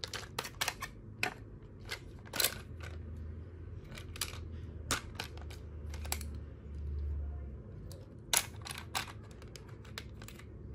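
Irregular sharp clicks and taps of hard plastic toy parts being handled and snapped together, as building-block pieces come off and are pressed onto the studs of a toy Thomas the Tank Engine, with a quick cluster of clicks near the end.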